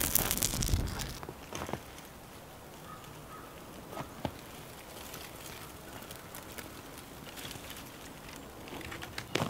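Flaming tinder bundle crackling and rustling as it is handled, loudest in the first second, then a small twig fire crackling faintly with a few scattered snaps.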